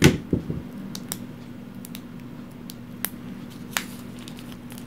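Hands handling a small pack of game cards on a table: a sharp knock at the start, then a few scattered small clicks and taps. A steady low hum runs underneath.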